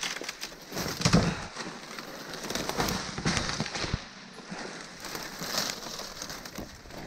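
Dry palmetto fronds, twigs and leaf litter crackling and rustling as someone pushes through undergrowth on foot, with a louder crack about a second in.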